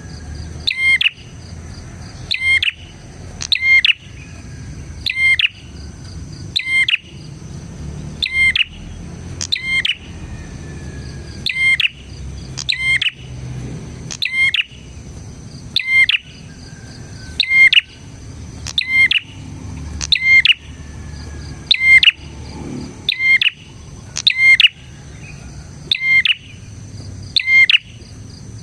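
Prenjak (prinia) singing its loud, sharp call over and over: short bursts of rapid notes, one about every second and a half. A steady high thin whine runs underneath.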